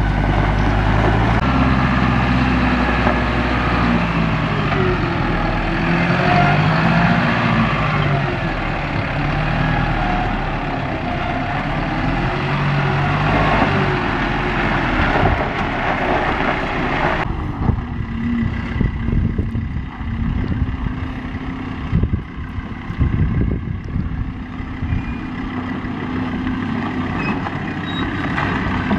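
Engines of off-road 4x4 vehicles working over a steep dirt slope, engine speed rising and falling. About seventeen seconds in the sound changes abruptly to a quieter engine with uneven low thumps.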